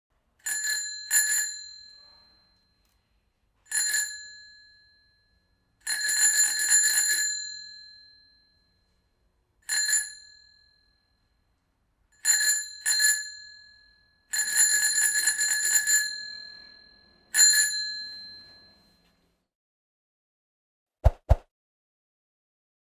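Bicycle bell rung again and again with a bright metallic ring: single dings, quick double dings and two rapid trilling runs, each left to ring out before the next. Near the end come two short clicks.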